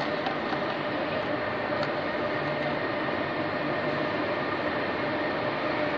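Steady hum and hiss of a large railway station hall, with a few faint steady tones running through it.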